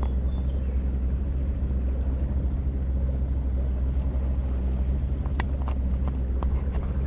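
Motorboat's outboard motor running steadily under way: a loud, even low drone with water and wind noise, and a few faint clicks about five seconds in.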